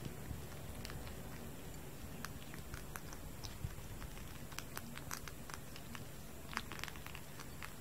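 Kitten chewing dry cat kibble: faint, irregular small crunches and clicks over a low room hum.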